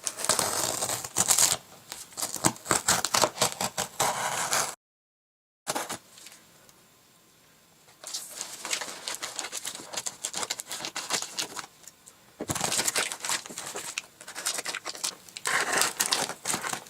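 A parcel's packaging being torn open and crinkled by hand, in bursts of rustling and ripping. The sound drops out completely for about a second, roughly five seconds in.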